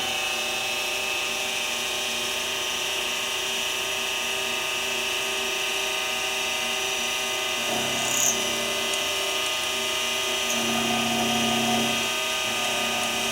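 Benchtop mini mill running steadily with an end mill taking a facing pass on the end of a small block, a constant whine of motor and spindle. A deeper hum comes in about eight seconds in and again near eleven seconds as the cutter works.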